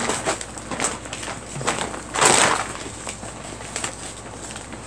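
Quilt fabric rustling as it is handled and folded in half, with scattered light rustles and one louder swish about two seconds in.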